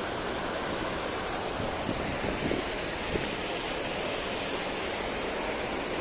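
A swollen river in flood, rushing steadily, with a few faint knocks a couple of seconds in.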